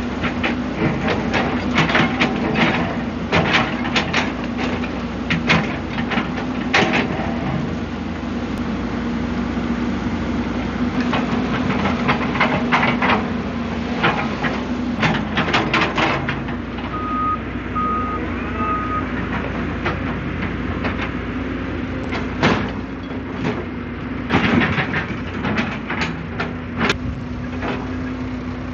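Diesel engine of a heavy excavating machine running steadily under load while digging and loading soil, with repeated clanks and scraping knocks from the bucket and dirt. A little past halfway, three short reversing beeps sound.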